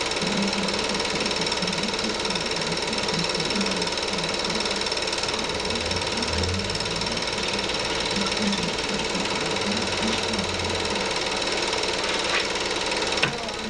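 Movie film projector running, a steady mechanical whir and clatter with a constant high whine, and a sharp click near the end.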